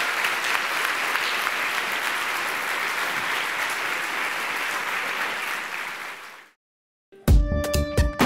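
A large audience applauding steadily, fading out after about six seconds. After a short silence, electronic music with a heavy beat starts.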